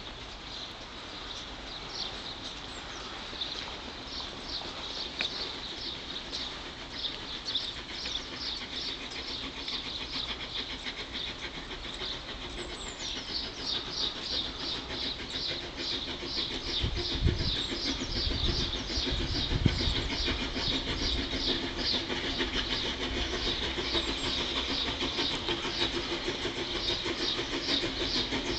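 Double Fairlie steam locomotive working uphill towards the station, its exhaust a fast, even chuffing that grows steadily louder as it approaches. Two short low bumps come about two-thirds of the way through.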